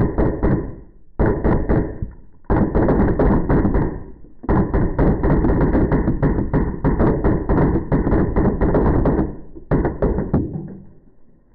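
Drozd Blackbird CO2 BB gun firing full-auto bursts of rapid shots: five bursts separated by short pauses, the longest about five seconds, with the last ending about ten and a half seconds in.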